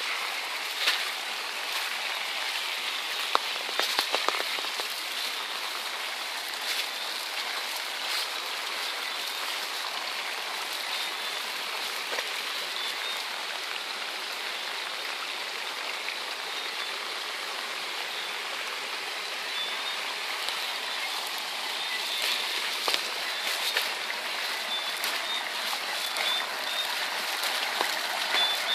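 Storm runoff water flowing down an eroded dirt track, a steady rushing. A few sharp knocks come about three to four seconds in and again near the end.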